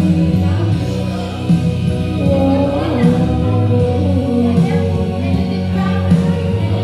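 Karaoke backing music playing at a steady level, with a sung melody over it.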